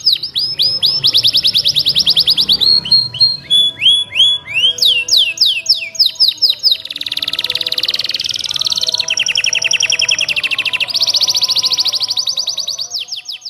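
Domestic canary singing a long, fast song of rapidly repeated sweeping trill notes, changing from one trill to the next every second or two, with a dense buzzing roll in the middle. The song fades out near the end.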